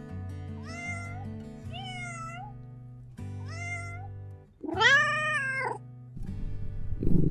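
A kitten meowing four times, short rising-and-falling calls, the last one louder and longer, over background music with low held notes. A low rumbling noise comes in near the end.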